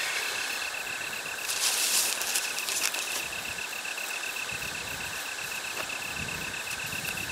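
An insect, cricket-like, trilling steadily in high, even pulses of about eight a second. A brief rustle about a second and a half in as the tent fabric and guy-line fitting are handled.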